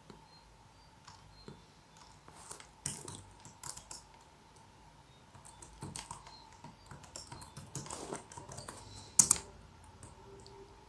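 Typing on a computer keyboard: irregular runs of key clicks, with one sharper, louder key strike about nine seconds in.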